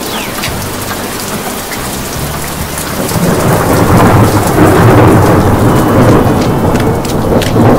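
Thunderstorm: steady heavy rain, with a long, loud rumble of thunder building about three seconds in.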